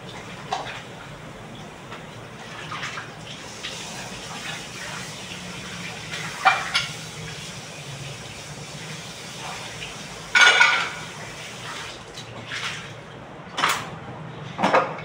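Dishes and cutlery clinking and clattering now and then, the loudest clatter a little past the middle, over a steady low hum.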